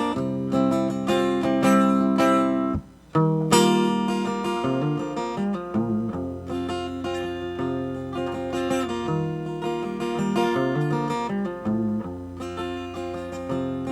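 Acoustic guitar strumming chords in an instrumental break of a song. The playing cuts out for a moment about three seconds in, then resumes.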